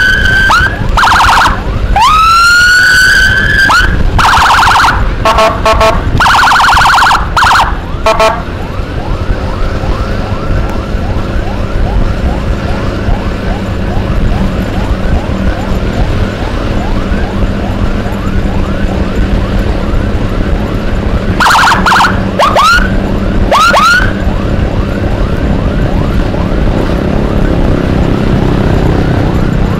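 Electronic siren on an escort motorcycle sounding in bursts. Quick rising whoops and stretches of rapid pulsing warble come in the first eight seconds or so and again about 22 to 24 seconds in. Between them a fainter, fast-cycling siren runs under steady engine and wind noise.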